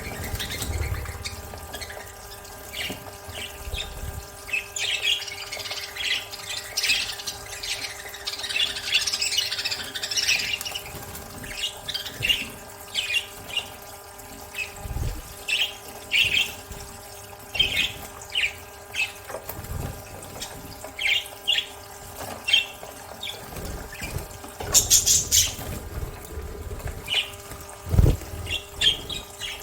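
Budgerigars chirping and squawking in many short calls, with a denser run of warbling chatter about five to ten seconds in and a brief louder rush of noise near the end. A steady low hum runs underneath.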